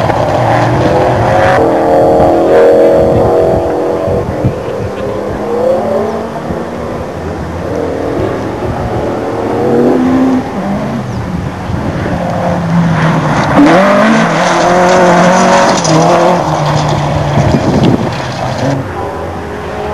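Rally car engines revving hard and changing gear as several cars pass in turn on a loose, dusty stage. The pitch climbs and then drops at each gear change, and the engines grow louder and fade as each car goes by.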